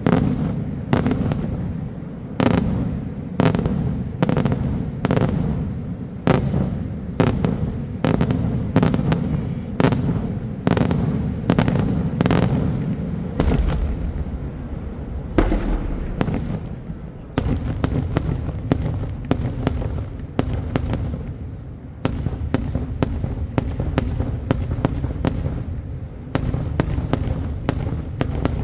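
Daytime fireworks display: a rapid string of loud bangs, about two or three a second, over a continuous low rumble.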